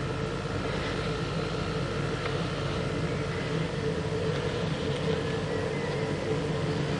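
Motor vehicle engine running steadily, a constant hum with no change in pitch.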